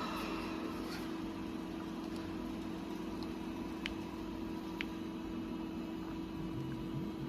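JUNG JE 525 P profile grinding machine running with a steady hum and a faint hiss, with a couple of light clicks near the middle.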